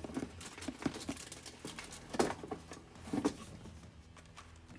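Packaging rustling and crinkling as hands dig through a subscription box, with scattered sharp clicks and taps, the loudest about two and three seconds in.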